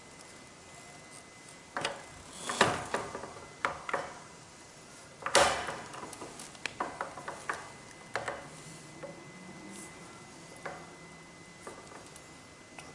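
Metal parts being handled by hand: scattered clicks, knocks and short scrapes, with louder scraping about two and a half and five and a half seconds in.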